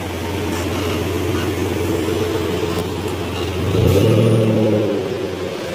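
Street traffic passing on a wet road: a steady hiss of tyres on wet asphalt with engine hum. It swells as a car drives close by about four seconds in, then eases off.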